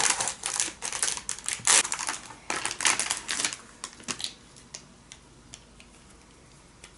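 Clear plastic bag crinkling and crackling as small plastic cookie cutters are handled and taken out of it: a quick run of crackles for the first few seconds, thinning to a few scattered small clicks by about five seconds in.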